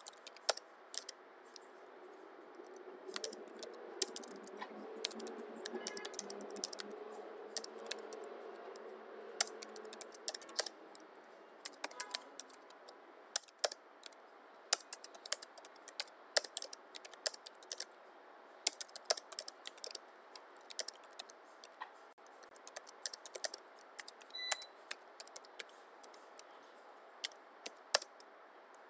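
Typing on a computer keyboard: fast runs of key clicks broken by short pauses.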